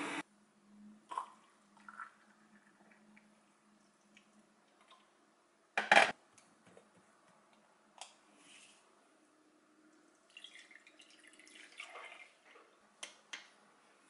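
Small clicks, taps and knocks from a hand-pump portable espresso maker being handled and put together on a counter, with one sharp knock about six seconds in and a busier patch of clicking and rustling near the end.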